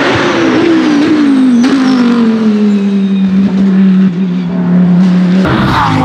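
Audi R8 LMS race car's 5.2-litre V10 running on track: the engine note drops in pitch over the first couple of seconds, then holds steady. A different, higher engine sound cuts in abruptly near the end.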